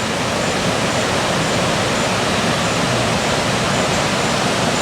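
Steady rushing water noise of a creek under a bridge with light rain falling on its surface.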